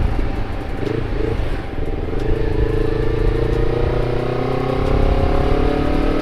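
Honda CBR250RR with a KEA Speed aftermarket exhaust, riding; its engine note climbs steadily from about two seconds in as the bike accelerates.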